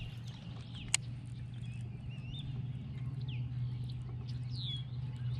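Birds chirping in short, sliding calls over a steady low hum, with one sharp click about a second in.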